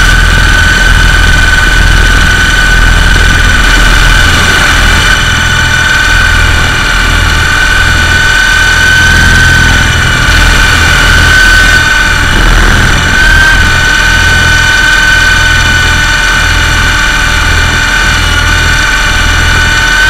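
Electric motors and coaxial rotors of an MJX F639 toy RC helicopter in flight, heard close up from its onboard camera: a steady high whine over a low, fluttering rumble, the pitch dipping slightly a few times.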